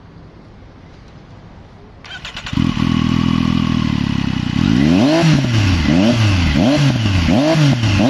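Triumph Street Triple 765 RS's inline three-cylinder engine cranked on the starter and catching about two seconds in, idling briefly through a Spark exhaust with the baffle removed, then blipped repeatedly, the revs rising and falling about one and a half times a second.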